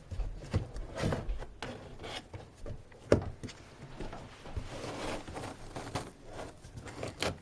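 A cat scrabbling and rustling about in a box, with irregular scrapes and rubbing and one sharp knock about three seconds in.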